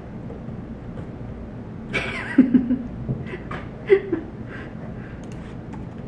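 A sudden rustle about two seconds in, then two short, soft chuckle-like vocal sounds and a few light clicks, over a steady low hum.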